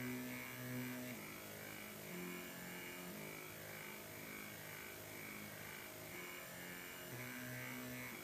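NEMA 17 stepper motor whining with a steady pitched tone that jumps between a few pitches every second or so, its step rate changing with the light falling on the BH1750 light sensor that controls it.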